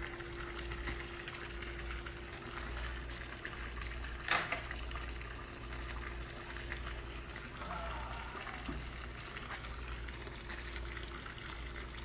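A burning iPhone 6 crackling and hissing inside a microwave oven, over a steady hum. There is one sharp pop about four seconds in.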